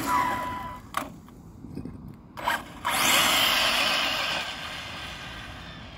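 Arrma Felony 6S RC car's brushless electric motor whining with tyre noise on asphalt: a steady whine at the start, a couple of short knocks, then a quick rising whine and hiss as it accelerates hard about three seconds in, fading as the car runs off.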